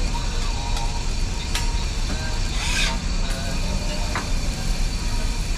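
Steady low rumble of a busy stall, with a couple of sharp taps of a metal spatula on a flat-top griddle and a brief hiss near the middle.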